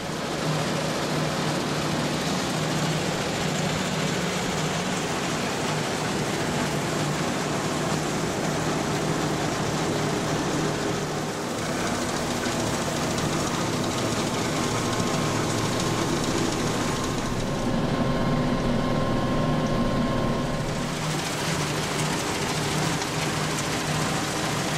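Tractor engine running steadily under load while driving a Hesston PT-10 pull-type mower-conditioner through tall weeds and grass. Between about 17 and 21 seconds in, a few higher tones join the hum.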